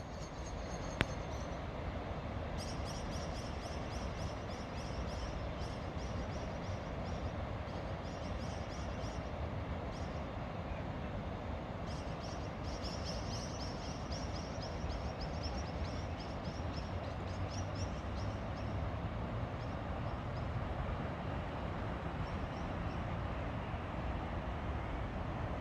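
Dawn birdsong: birds give rapid runs of high, repeated chirps in bursts of several seconds over a steady low background rumble. A single sharp click comes about a second in.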